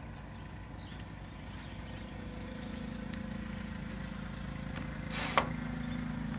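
A low, steady motor hum that grows a little louder partway through, with one short whirring burst a little after five seconds in.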